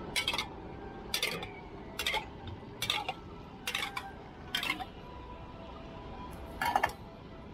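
Steel utensils clinking as a dosa cook's spoon and spatula strike steel containers and the griddle. Sharp clinks come about once a second, then a gap and one more near the end.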